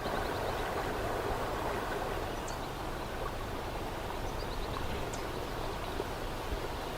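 Steady rush of flowing stream water, with a short high chirp repeating about every two and a half seconds.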